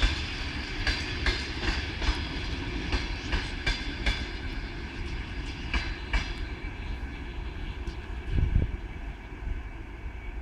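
Passenger coaches of a diesel-hauled train rolling slowly past, wheels clicking over the rail joints over a steady rumble. About six seconds in the clicks thin out and the sound fades. A low gust of wind on the microphone comes near the end.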